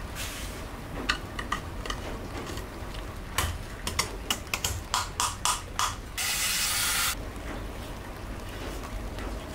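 Sharp clicks of small tools and parts as plastic teeth are fitted and screwed onto a 3D-printed model excavator bucket. There are a few scattered clicks, then a quick run of about a dozen clicks, then a brief hiss lasting about a second.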